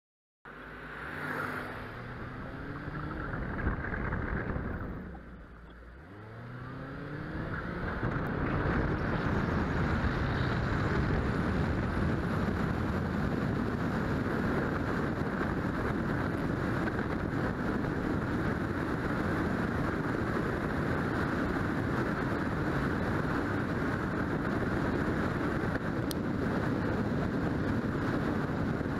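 Car accelerating, its engine pitch climbing, falling back about five seconds in, then climbing again. From about eight seconds in it settles into a steady rush of wind and tyre noise at road speed.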